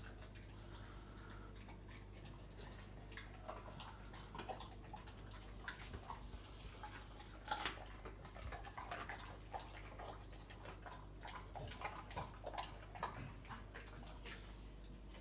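American Bully dog chewing raw chicken bones, with irregular crunches and clicks that are strongest about halfway through.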